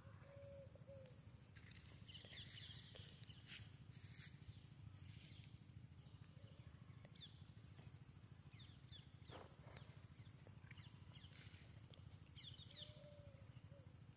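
Faint rural field ambience: scattered short bird chirps over a steady, thin, high-pitched insect drone, with a low background rumble.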